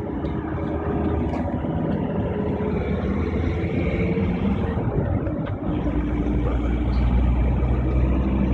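Steady road and engine noise inside a moving vehicle on a highway, with a heavy lorry and its trailer passing close alongside; a deeper low rumble grows from about six seconds in.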